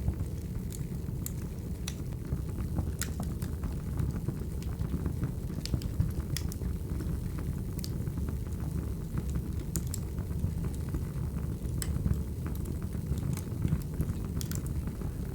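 Crackling wood fire: a steady low rumble with irregular sharp crackles and pops from the burning firewood.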